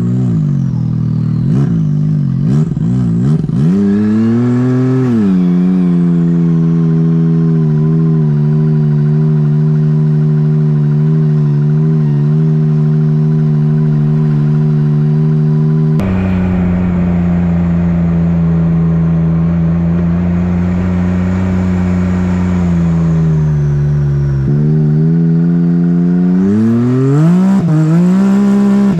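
Side-by-side UTV engine heard from on board: a few quick throttle blips, then it revs up and holds a steady cruising speed. About three-quarters through the revs drop, then climb again near the end.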